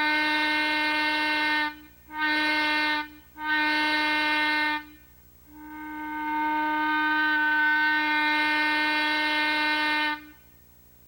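A 3½-inch Lunkenheimer chime whistle blown on compressed air, sounding a chord of several steady tones at once. A blast ends a couple of seconds in, two short blasts follow, then a long blast swells in and cuts off cleanly near the end.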